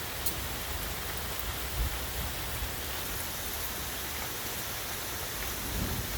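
Heavy rain pouring steadily, a dense even hiss with the odd drop ticking close by.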